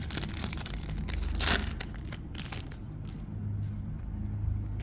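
Foil wrapper of a Topps Chrome trading-card pack crinkling and being torn open, the loudest rip about a second and a half in, then quieter.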